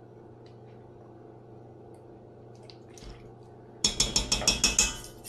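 Metal tablespoon clinking against a stainless steel mixing bowl: a quick run of about nine sharp taps in a second and a half, starting near the end, after a few seconds of faint room hum.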